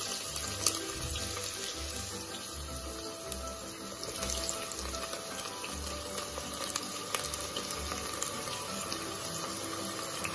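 Sliced onions frying in hot oil and ghee in a pressure cooker pan, a steady sizzling hiss.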